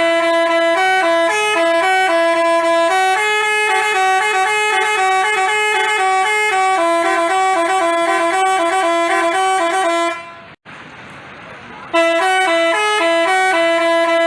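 Telolet basuri bus horn, a multi-tone horn playing a quick tune of short stepping notes. About ten seconds in it breaks off for about two seconds, then plays again.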